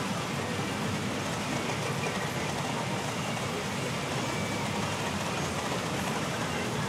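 Steady, dense din of a busy pachinko hall: a constant rush of steel balls and machine noise, with no single sound standing out.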